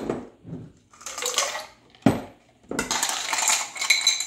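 Ice cubes clattering as they are scooped from a bowl with a plastic measuring cup and tipped into a plastic blender cup. They come in several rattling bursts, with sharp knocks at the start and about two seconds in.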